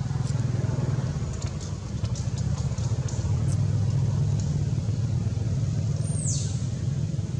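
Steady low rumble, with faint high ticks in the first half and a short high squeal that falls in pitch about six seconds in.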